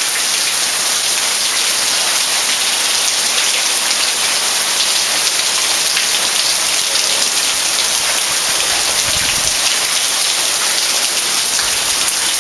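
Heavy rain pouring steadily onto shrubs, grass and paving, with water streaming off the roof edge. A brief low rumble about nine seconds in.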